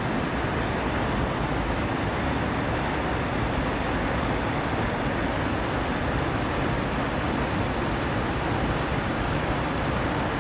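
Steady rush of mountain stream water, an even wash of noise with no breaks or separate splashes.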